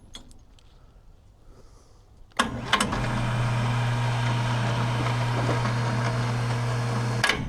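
Vevor electric winch motor running for about five seconds with a steady, even hum, starting about two and a half seconds in and stopping just before the end. It is a test run to see whether the cable spools the way it should.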